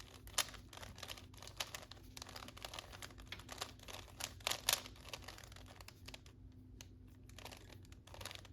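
Plastic Rubik's cube being scrambled by hand, its layers turned quickly in irregular runs of clicking and clacking, with a brief lull about six seconds in.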